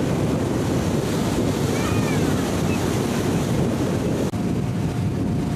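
Wind buffeting the microphone and water rushing against the hull of a fishing boat under way on choppy sea, a steady, dense noise.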